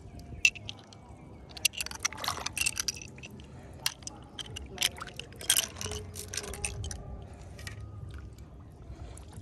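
Blood clam shells clicking and clacking against each other in a hand, with small wet splashes in shallow water. The clicks come in clusters, about two seconds in and again around five and a half seconds.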